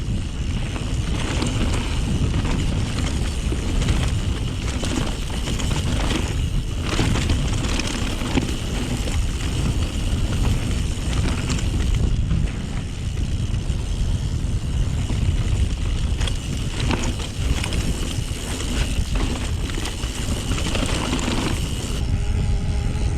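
YT Jeffsy full-suspension mountain bike riding down a dirt trail: steady wind rumble on the chest-mounted camera's microphone, tyre noise on the ground, and frequent clicks and rattles from the bike over rough ground.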